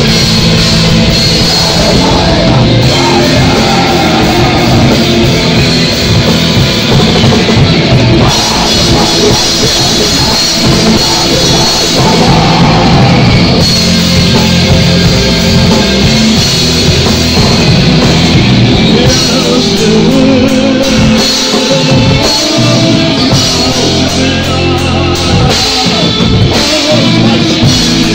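Live rock band playing a loud, heavy song: electric guitars, bass and drum kit, with a vocalist singing at times.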